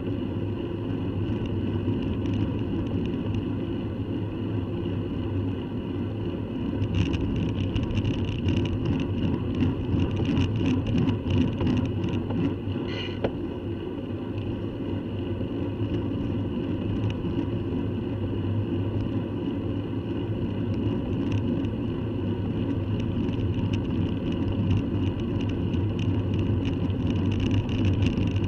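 Steady riding noise of a bicycle on tarmac, heard through a bike-mounted action camera: wind and tyre rumble. From about seven seconds in there are frequent clicks and rattles.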